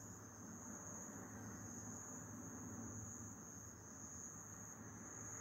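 Crickets trilling steadily, a faint unbroken high-pitched note, over a low hum and hiss.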